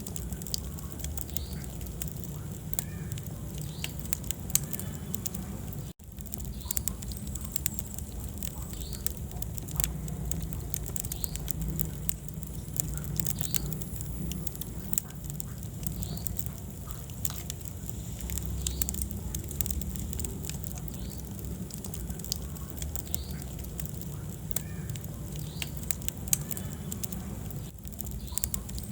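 Wood fire burning in a fireplace: a steady low rumble of the flames with frequent sharp crackles and pops of the burning logs. The sound drops out very briefly about six seconds in.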